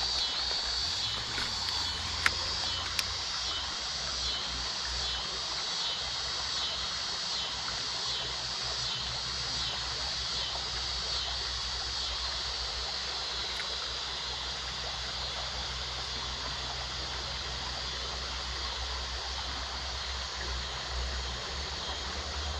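Creek water running steadily over a shallow bed, an even hiss of flowing water, with a couple of light clicks about two and three seconds in.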